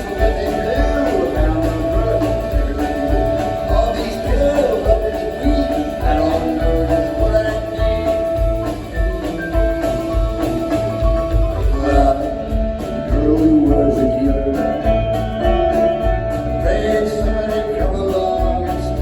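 Live rock band playing a blues-rock song: electric guitars over bass and a steady drum beat, recorded from the audience.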